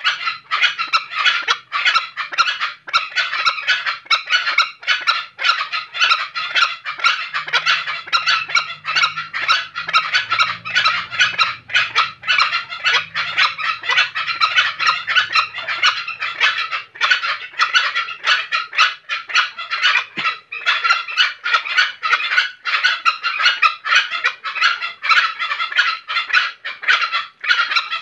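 Green junglefowl rooster giving a loud, rapid chattering call of many pulses a second that runs on without a break, the distinctive call of a male in breeding condition.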